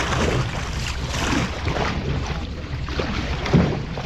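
Outrigger canoe paddle blades going into and pulling through the water in repeated splashing strokes, the loudest about three and a half seconds in, over a steady rumble of wind on the microphone. The blades slap in on entry, which the coach calls cavitation from hitting the water instead of setting the blade first.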